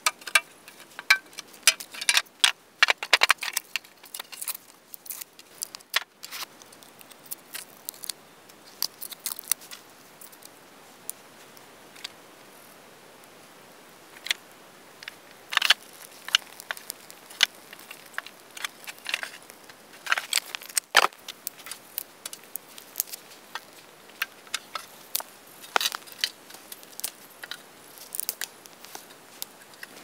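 Split kindling and sticks knocking and clattering on a steel fire tray as a small campfire is laid and lit: irregular sharp clicks and knocks, busiest in the first few seconds and again through the second half.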